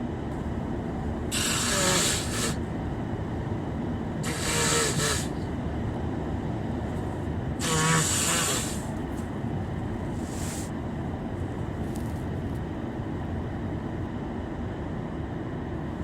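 A congested man with a cold sniffles hard three times, each sniff about a second long and a few seconds apart, then once more faintly. Under them is the steady rumble of a car's cabin on the move.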